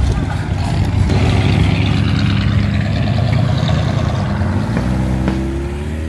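Cadillac Sedan de Ville's engine pulling away and accelerating, a steady low rumble that rises in pitch near the end.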